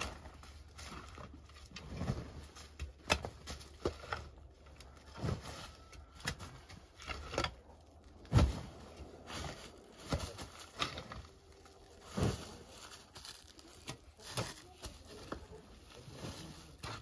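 Pick striking repeatedly into stony soil, irregular dull thuds about every one to two seconds, the heaviest about eight seconds in, with loosened dirt and clods crumbling and pattering between strikes.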